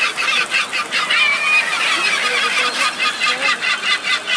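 A large flock of gulls calling at once: many overlapping cries in a dense, continuous chorus.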